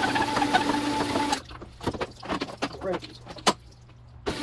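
Cylinder honing machine running with a steady whine as it hones a jet ski cylinder bore; it stops about a second and a half in. Scattered metallic clicks and knocks follow as the spindle is handled, and the machine runs again right at the end.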